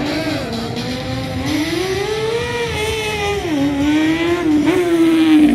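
Stunt motorcycle engine revving hard, its pitch climbing to a peak, dropping sharply, then rising again and holding high.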